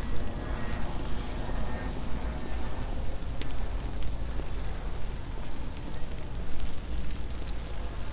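Rainy city street: traffic on wet pavement gives a steady rush of noise over a deep, uneven rumble, with a few faint clicks.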